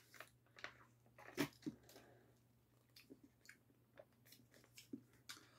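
Faint, scattered mouth clicks of eating as konjac water jelly is sucked from a spout pouch.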